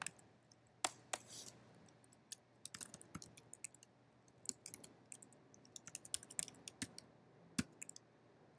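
Typing on a computer keyboard: quick, irregular key clicks coming in bursts, the fastest run in the second half.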